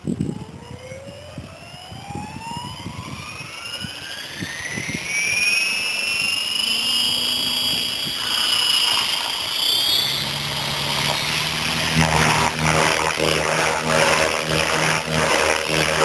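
Align T-Rex 700E electric RC helicopter spooling up. The motor and gear whine rises steadily in pitch for about six seconds, then holds level. From about twelve seconds in, the loud flutter of the main rotor takes over as the helicopter flies.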